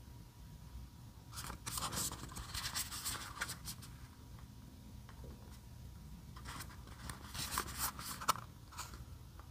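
A small cardboard box handled and turned over in the hands: two spells of dry scraping and rubbing of card against skin, with a sharper tap near the end.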